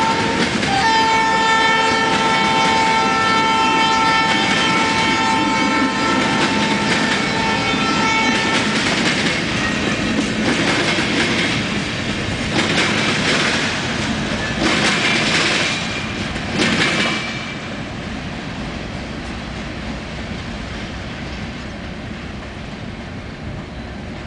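Freight cars of a BNSF local train rolling past, their wheels clattering over the rails. A locomotive horn holds a long steady chord for roughly the first eight seconds. Several short bursts of hissing noise follow, then the rumble fades as the last cars go by.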